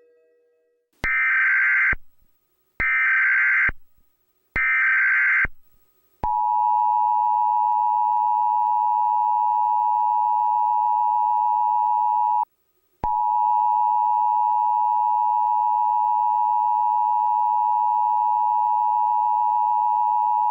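Emergency Alert System alarm: three short SAME header data bursts about two seconds apart, then the steady two-tone attention signal, which drops out for about half a second midway and comes back.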